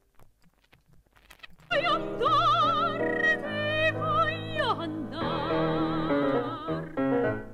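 Vinyl LP of opera, transferred to digital and run through a de-clicking plug-in. A few faint clicks come first, then about a second and a half in a singer with strong vibrato enters over accompaniment.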